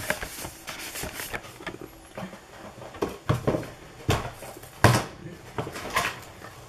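Irregular clicks, knocks and crinkles of a cardboard-and-plastic trading-card box being handled and opened, with a couple of louder knocks about four and five seconds in.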